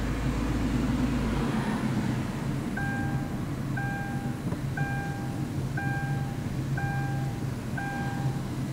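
Steady low hum of a vehicle driving slowly, heard from on board. From about three seconds in, an electronic beep repeats about once a second, six times.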